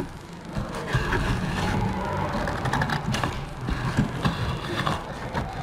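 Scissors cutting along the edge of a large sheet of printed paper, with repeated snips and the stiff paper rustling and crinkling as it is handled.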